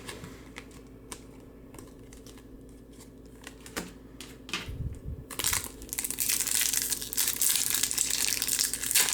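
A few light clicks of trading cards being handled, then from about five seconds in a loud, continuous crinkling of a trading-card pack wrapper being torn open and crumpled.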